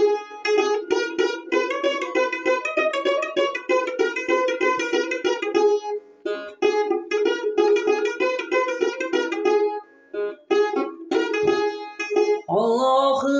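Long-necked fretted lute played solo in a quick run of plucked notes, with short breaks about six and ten seconds in. A man's singing voice comes in near the end.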